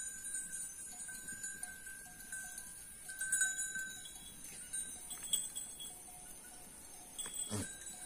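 Metal bells on grazing goats clinking on and off as the animals move and feed, in short ringing strokes.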